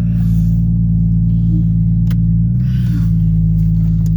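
Jeep Cherokee engine running steadily, a low even drone, with a single click about two seconds in and a brief wobble in the drone shortly after.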